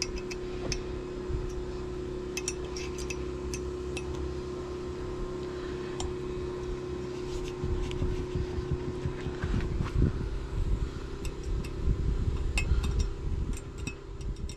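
Small metallic clicks and clinks of hands handling a sailboat's propeller and shaft hardware, with louder knocks and bumps from about eight seconds in, over a steady mechanical hum.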